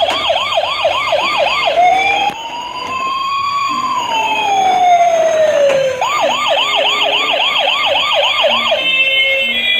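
Electronic siren of a battery-powered toy fire truck. A fast yelping warble of about four sweeps a second changes to one slow rising and falling wail, then back to the fast yelp, and near the end switches to a different beeping tone pattern.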